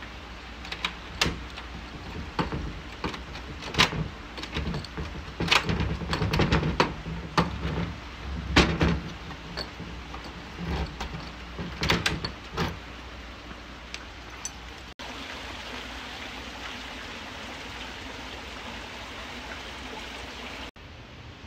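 Key working in a door lock: a string of sharp metallic clicks, rattles and knocks for about thirteen seconds, then a steady hiss.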